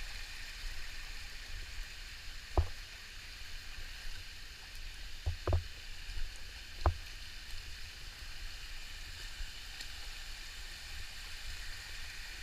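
Hot-spring stream and waterfall water rushing as a steady hiss. A few sharp knocks sound over it, about two and a half, five and a half and seven seconds in.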